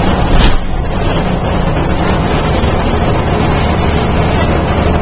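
Steady road traffic noise, with a brief loud thump about half a second in.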